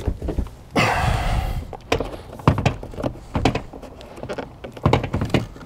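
Hard plastic knocks and clicks from a loose Jeep Grand Cherokee door trim panel being handled while a trim piece is pried out with a plastic trim stick. There is a scraping rustle about a second in, then a series of sharp knocks.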